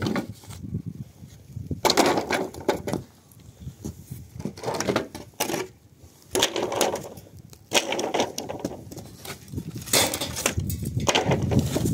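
Wooden boards being handled, knocking and clattering against each other, with plastic sheeting rustling. The noises come in irregular bursts, loudest about two seconds in and again near the end.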